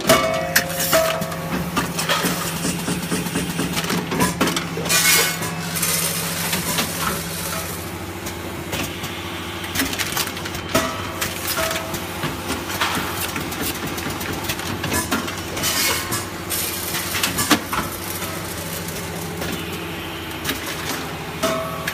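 Automatic granule pouch packing machine running: a steady hum under repeated clicks and clatter from its pneumatic grippers and mechanism, with a few short hisses of air. A brief two-part tone comes back about every eleven seconds.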